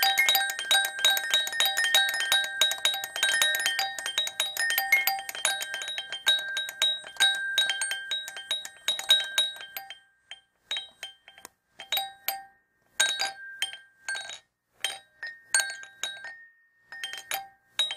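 A small doll bell jingling rapidly and continuously, thinning out after about ten seconds into short separate rings with silent gaps between.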